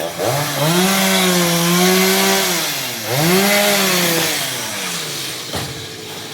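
Stihl MS 382 two-stroke chainsaw revved up to high speed twice: the note climbs fast, holds, drops briefly, climbs again, then falls back toward idle. A short knock comes near the end.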